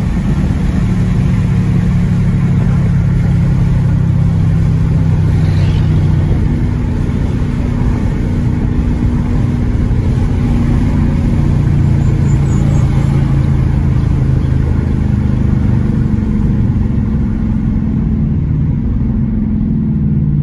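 2020 Dodge Challenger R/T's 5.7-litre HEMI V8 with its mid mufflers deleted, a loud, steady exhaust drone while driving, rising and falling a little in pitch.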